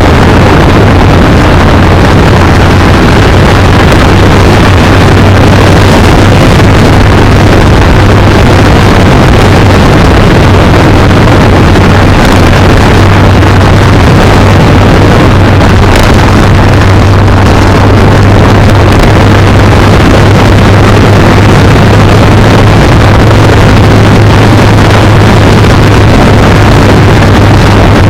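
Kawasaki Z900 inline-four engine running at a steady, unchanging note while riding, mixed with loud wind rush over the microphone.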